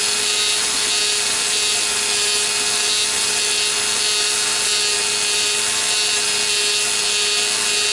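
Dremel flex-shaft tool post grinder with a 60-grit stone grinding the inside bore of an ER32 collet chuck as the lathe turns it: a steady, high grinding hiss with a constant hum underneath.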